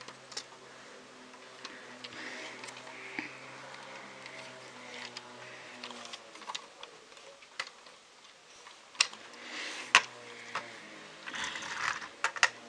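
Plastic LEGO bricks clicking, tapping and scraping as a LEGO helicopter and truck model are handled, with scattered light clicks and a few sharper knocks near the end.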